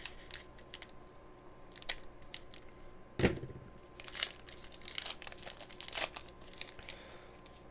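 Foil wrapper of a 2012-13 Panini Certified hockey-card pack crinkling and tearing as it is slit and pulled open by hand: a string of sharp crackles, the loudest about three seconds in.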